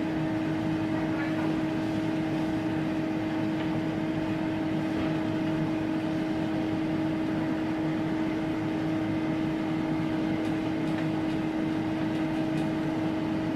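Vacuum cleaner motor running steadily: an even hum with a strong steady drone over a constant rush of air.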